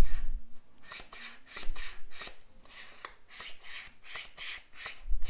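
Lid of a Fellow Atmos vacuum canister being twisted back and forth, its built-in pump giving a short rasping stroke with each turn, about two a second, as it draws air out of the glass jar and the vacuum builds. Low knocks from handling the canister at the start and near the end.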